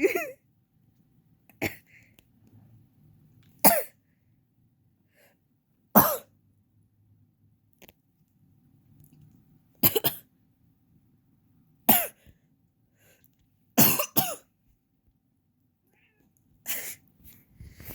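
A person coughing from allergies: short single dry coughs about every two seconds, around ten in all, with a longer pause in the middle and a quick double cough near the end.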